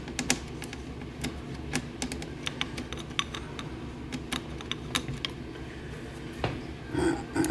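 Irregular small clicks and taps of a screwdriver and small metal parts as a screw is worked out of a cassette deck's transport mechanism, over a steady low hum, with a louder clatter of handling near the end.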